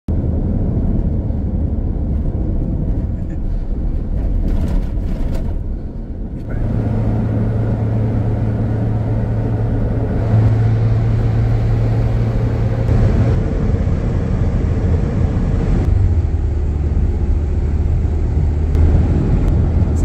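A car driving at road speed, heard from inside: a steady low drone of engine and tyres on the road. Its pitch and character shift abruptly about six seconds in and a few times after.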